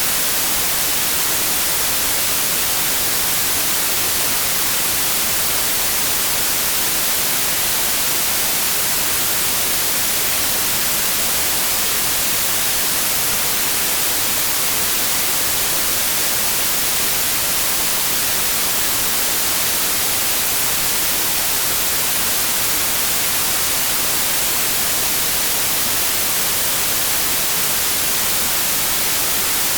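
Steady synthetic white noise: an even, unbroken hiss strongest in the high end, with no change in level.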